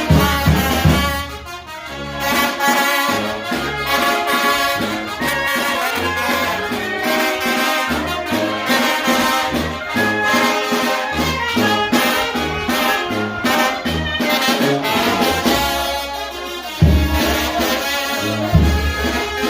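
Mexican village brass band playing, trumpets and trombones over a moving bass line. Heavy low beats come in near the end.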